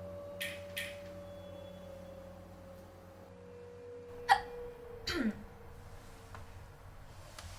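A person hiccuping: one sharp, loud hic about four seconds in, then a second hic a moment later with a falling voice. Beneath it a faint held musical tone fades out.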